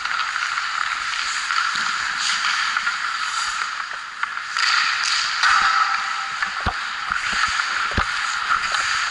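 Ice hockey skate blades hissing and scraping on rink ice while skating, swelling louder for a couple of seconds midway. In the second half a few sharp taps of a hockey stick on the puck and ice.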